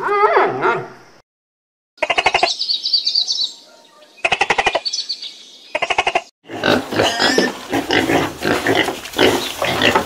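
Short, rapidly pulsed animal calls and a high warbling call, separated by gaps, then from about six and a half seconds a dense run of pig grunts and squeals.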